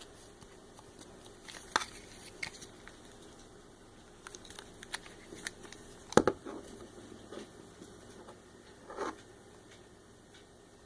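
Plastic Play-Doh mold and tools handled while shaping dough: scattered light clicks and taps. The loudest comes about six seconds in and another near nine seconds.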